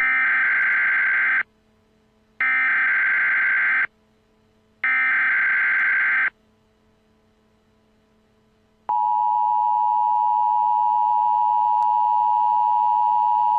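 Emergency Alert System tones: three digital SAME header data bursts, each about a second and a half long with a second's gap between them. About two and a half seconds after the last burst comes the steady two-tone attention signal, which starts suddenly and holds.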